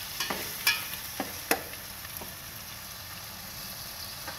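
Chopped tomatoes, green chillies and onions frying in hot oil with a steady sizzle, while a metal spatula scrapes and knocks against the metal pot four or five times in the first two seconds as the mixture is stirred.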